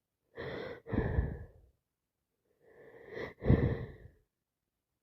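Two forceful breaths from a person with a heavy head cold, about two seconds apart. Each is a softer breath in, a brief catch, then a louder, breathy breath out, the second one the loudest.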